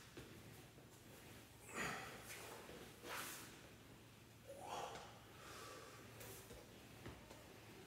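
A man breathing hard with effort while holding a kettlebell overhead: about four short, sharp breaths roughly a second and a half apart, faint.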